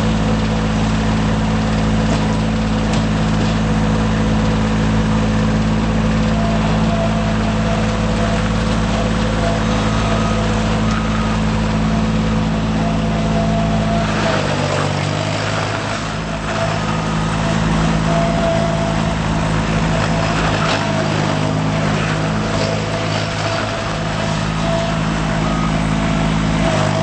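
Bobcat S70 skid steer loader's Kubota three-cylinder diesel engine running steadily. About halfway through, the engine note changes as the engine speed shifts, and a higher tone runs above it afterwards.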